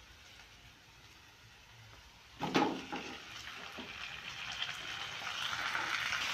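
Chopped tomatoes tipped into a hot oiled kadhai of browned onions, landing with a sudden loud plop about two and a half seconds in, then the oil sizzling and growing steadily louder as they start to fry.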